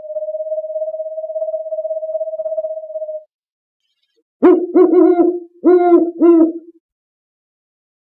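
Owl calls: one long, level-pitched hoot held for about three seconds, then after a pause four shorter, lower hoots in two pairs.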